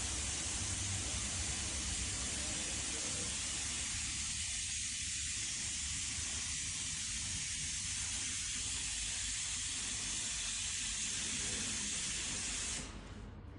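Water-cooled brake disc grinding machine running, a steady spraying hiss of coolant and grinding that cuts off suddenly near the end.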